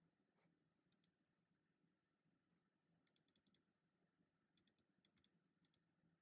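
Faint, sporadic typing on a computer keyboard: a couple of keystroke clicks about a second in, then short quick runs of keystrokes in the middle and again near the end.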